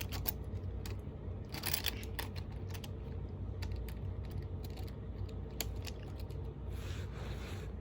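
Bachmann HO scale model train running around its track: irregular light clicks and rattles of the wheels over the rail joints, some in short clusters, over a low steady hum. The set has no sound unit, so this is only the mechanical running noise.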